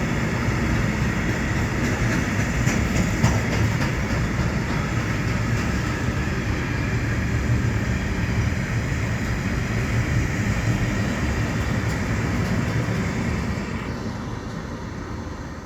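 Container freight train rolling past: steady rumble and rattle of wagons on the rails, with light clicks of wheels over rail joints, fading away near the end as the train moves off.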